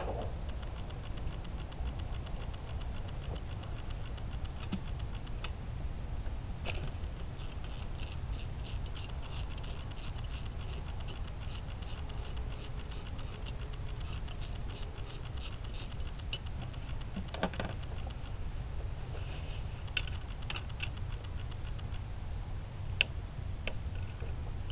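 Socket ratchet wrench clicking in a long run of quick, even clicks as a bolt is turned out, then a shorter run and a few single clicks later.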